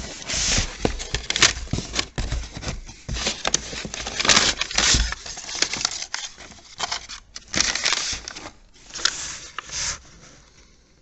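Cardboard parts boxes being handled and a paper invoice rustling and crinkling as it is pulled out and unfolded, with scrapes and small knocks; it dies away near the end.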